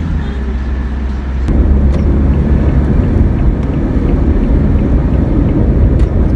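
Toyota HiAce van driving, heard from inside the cabin: a steady low engine and road rumble that turns louder and rougher about a second and a half in.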